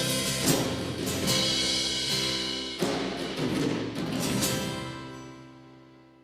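Worship band playing the instrumental end of a song, with a few sharp drum hits, then a last held chord that rings and fades away over the final seconds.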